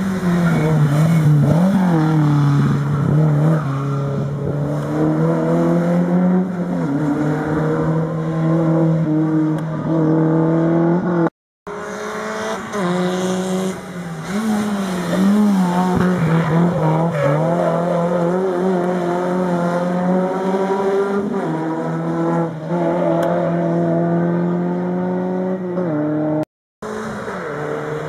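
Rally cars driven hard through a tight bend one after another, their engines revving up and dropping back as they brake, change gear and accelerate away. The sound breaks off for an instant twice where the footage cuts from one car to the next.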